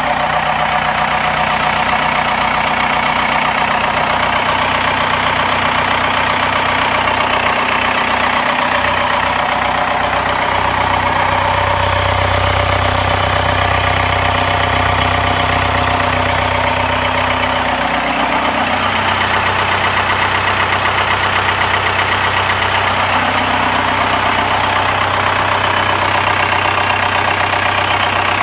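Freshly rebuilt Cummins 4BT four-cylinder turbo diesel running steadily at idle on its first run after the rebuild. Its note changes about ten seconds in and again briefly around eighteen seconds.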